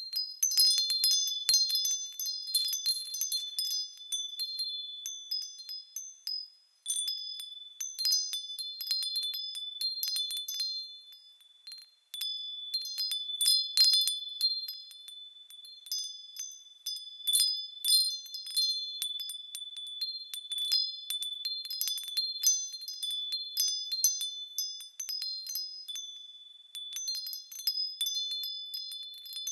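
Small high-pitched bells chiming irregularly as they swing, several ringing tones overlapping and lingering between strikes, with brief lulls about six and twelve seconds in.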